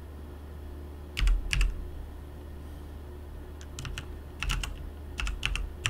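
Keystrokes on a computer keyboard typing a command: two keystrokes about a second in, then a run of several more from about three and a half seconds on, over a steady low hum.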